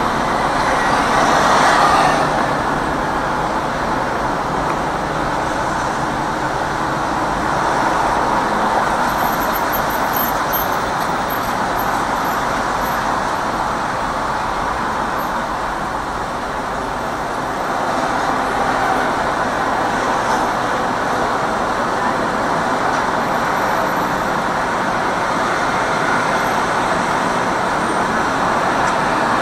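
Steady street traffic noise from a dense queue of motorcycles and cars standing at a junction, with a brief swell about two seconds in.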